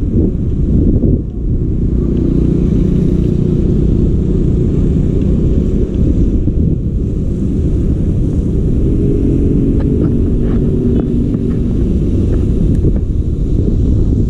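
Wind buffeting the microphone of a camera riding on a moving bicycle, a loud, steady low rumble, with a faint hum rising through it a couple of times and a few light clicks later on.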